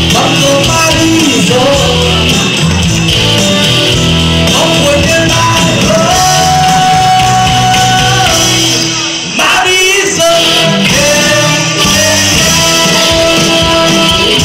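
Live band playing a song with a lead vocal and long held sung notes over drum kit and electric bass, with a brief drop in the music about nine seconds in.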